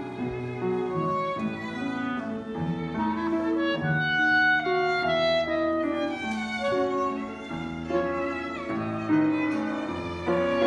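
Piano, cello, violin and clarinet playing a waltz together live, with long sustained string and clarinet notes over the piano.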